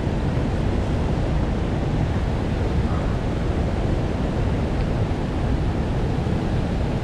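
Small creek rushing steadily over rocks and through a riffle.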